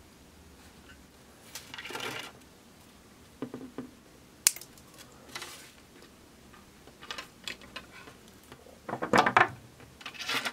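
Copper wire sculpture handled on a wooden table with a small hand tool: scattered light metallic clicks, scrapes and rustles of wire. There is a sharp click about four and a half seconds in and a louder rattling cluster near the end as the piece is laid flat.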